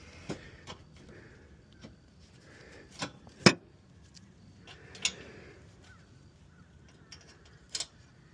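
Scattered sharp knocks and clanks from hands and tools working on a lawn mower, about half a dozen, the loudest about three and a half seconds in.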